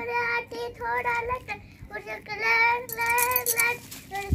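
A young girl singing, holding level, high-pitched notes in short phrases with brief gaps between them.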